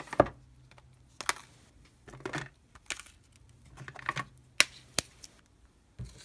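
Smashed iPhones and iPod Touches being handled, clacking against each other and against their boxes: a string of sharp, irregular clicks and knocks, the loudest just after the start.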